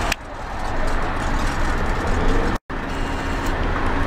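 Steady road and engine rumble of a moving car, heard from inside the vehicle. It is broken by a sharp click just after the start and a brief total dropout a little past halfway.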